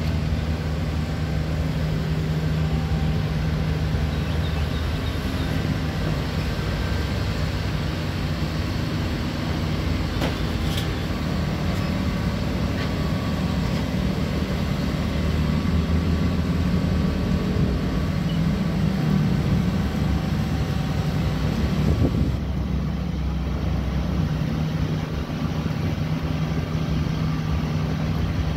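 Diesel engine of a mini amphibious excavator running steadily as it works its boom and tracks, its note swelling for several seconds before the sound changes suddenly about three-quarters of the way through.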